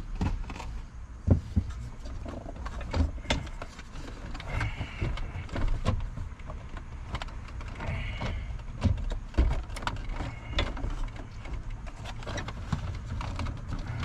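Plastic console trim and its metal frame being handled and shifted by hand: irregular clicks, knocks and taps, with a few short plastic squeaks.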